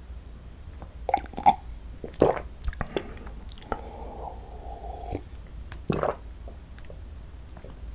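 Close-miked chewing of soft, sticky rice cake filled with cream cheese: wet mouth smacks and small clicks, with a few louder smacks about a second in and again near six seconds.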